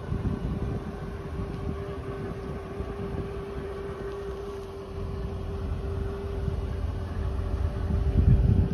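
Wind buffeting the microphone in uneven gusts, strongest near the end, over a steady mid-pitched hum.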